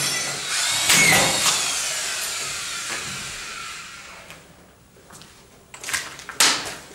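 Power screw gun driving a screw into drywall about a second in, its motor whine then sliding steadily down over a few seconds as it winds down. Two sharp clacks near the end.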